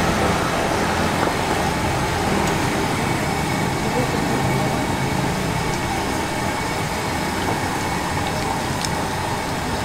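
Pa thong ko dough sticks deep-frying in a wide wok of hot oil, a steady sizzle, with people's voices in the background.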